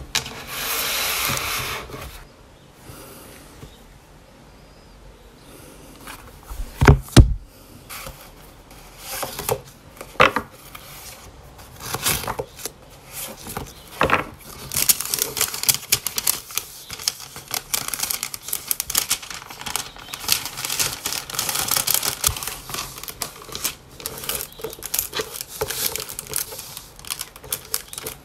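Hands handling paper cards, envelopes and clear plastic sleeves on a wooden desk: rustling, crinkling and small taps, with a couple of loud knocks about seven seconds in and denser crinkling through the second half.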